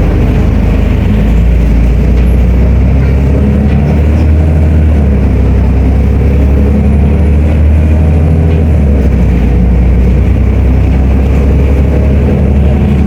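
Volvo B340M bus's inline-six diesel engine running under way, loud and steady, its note stepping up and down a few times as the engine speed changes.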